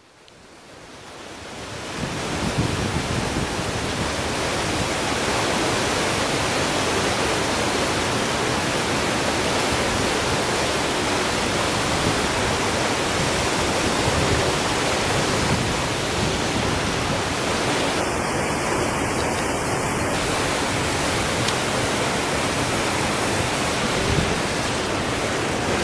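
River water rushing and washing against a concrete embankment: a steady rush of noise that fades in over the first two seconds and then holds even.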